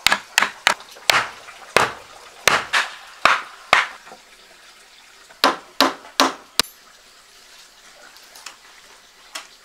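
A run of sharp knocks, about two a second for the first four seconds, then a pause and four more knocks between about five and a half and six and a half seconds in.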